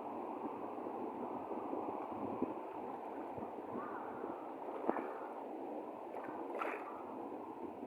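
Sea water sloshing and gurgling as a steady wash, with a couple of brief knocks or splashes.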